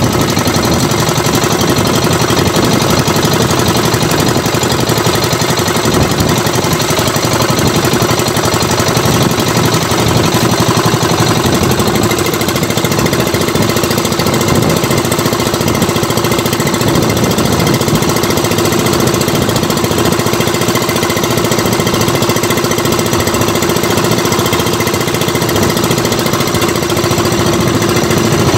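Engine of a bangka (wooden outrigger fishing boat) running steadily under way, a loud, fast-pulsing mechanical drone.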